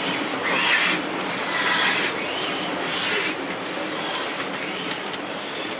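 Railway wagons rolling slowly on the track, their wheels rumbling and rasping in swells about once a second that ease off after about three seconds.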